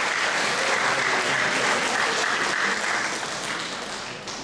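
Audience applauding, the clapping fading away over the last second or so.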